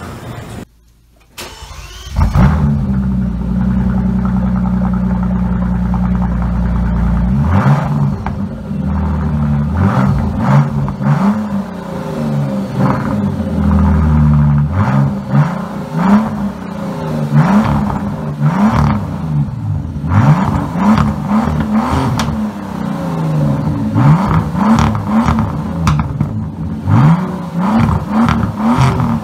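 Bentley Continental GT's W12 engine, breathing through a muffler-deleted exhaust, starts about two seconds in and idles steadily for a few seconds. It is then revved in repeated short blips that rise and fall in pitch. The exhaust note is deep and somewhat aggressive.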